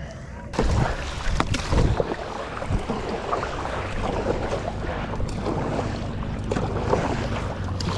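Paddleboard paddle strokes splashing in the water during a sprint, with wind buffeting the microphone.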